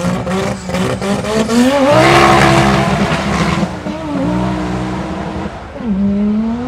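A Subaru Impreza WRX STI and an Audi quattro launching off a drag-strip start line: the engines rev hard and climb in pitch, loudest about two seconds in with tyre squeal as the tyres spin, then the pitch drops back at each upshift as they pull away.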